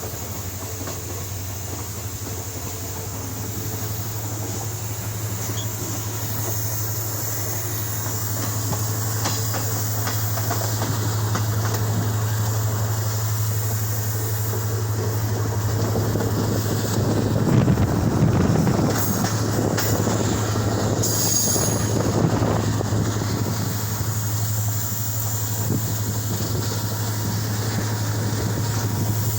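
Steady drone of a moving vehicle, with a low hum under a rushing noise that grows louder and rougher about two thirds of the way through.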